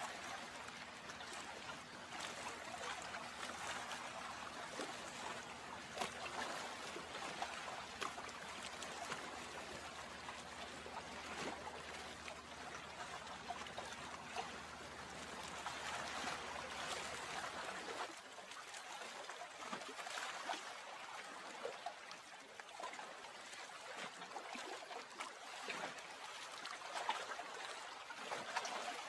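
Gentle moving water, a steady soft trickle with small scattered splashes and drips. A faint low steady hum underneath stops abruptly about eighteen seconds in.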